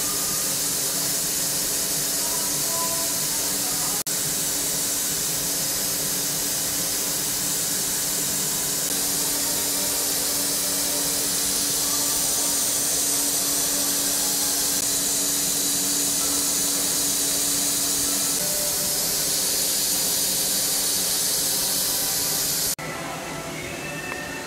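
Milling machine roughing out a block of 6061 aluminium: a loud, steady hiss of the cut with a steady hum underneath that stops about three-quarters of the way through. The sound cuts off sharply near the end.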